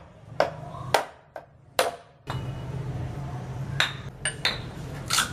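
A series of sharp, irregular knocks and clinks of hard objects struck or set down, about seven in all, some with a brief ring, over a steady low hum.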